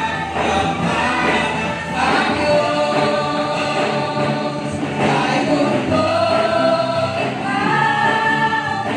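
A group of voices singing a gospel worship song together, with long held notes, amplified through a PA loudspeaker.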